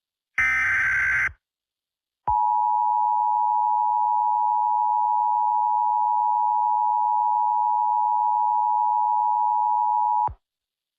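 Emergency Alert System broadcast tones. About half a second in, a roughly one-second burst of SAME digital header data sounds, a screechy modem-like warble. After a second of silence, the EAS attention signal follows: a steady two-tone alarm (853 and 960 Hz) held for about eight seconds that cuts off sharply.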